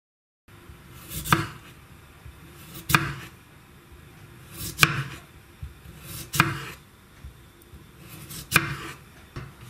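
Kitchen knife slicing a peeled raw potato on a wooden cutting board: five slow cuts, each a brief crunch through the potato ending in a sharp knock of the blade on the board.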